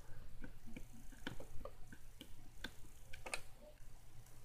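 Small plastic miniature food toppings clicking and tapping as they are picked through, with irregular light clicks, a few a second.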